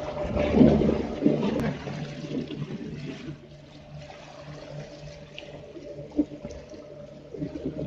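Water rushing and splashing past a small homemade electric boat under way, over a steady whine from its twin electric motors. The rush of water is loudest for the first three seconds, then eases.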